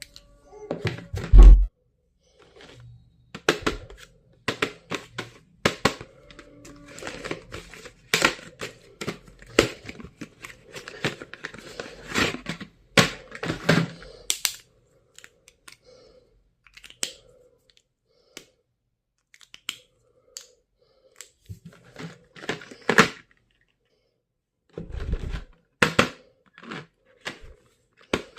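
Stationery and its plastic packaging being handled: crinkling and tearing, with many sharp clicks and taps. A heavy thump comes about a second and a half in, and another a few seconds before the end.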